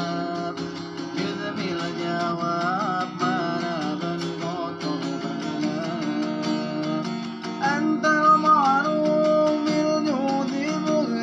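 A man singing a sholawat (Islamic devotional song) while strumming an acoustic guitar; the voice slides through ornamented melodic turns and is loudest a little past the middle.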